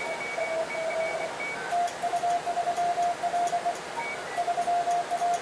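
Morse code (CW) from a ham radio transceiver: a steady beep keyed into dots and dashes. After a brief pause about a second and a half in, the keying resumes at a slightly higher pitch with light clicks in time with it, as a dual-lever paddle sends.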